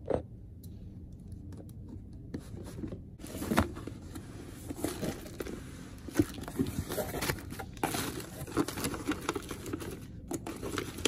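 Cardboard shipping box being opened and unpacked by hand: a sharp knock at the start, then from about two seconds in tearing, scraping and crinkling of packing material with scattered knocks.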